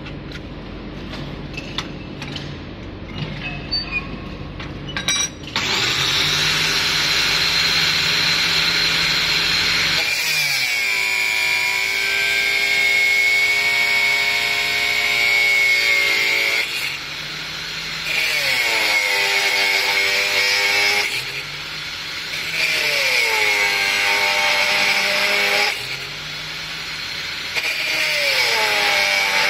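Bench-mounted angle grinder with a thin abrasive cut-off wheel: handling clicks, then the grinder starts about five seconds in and cuts through steel rod four times over. Each cut brings a high steady screech as the motor's pitch falls under load, with quieter spells between cuts while the wheel spins free.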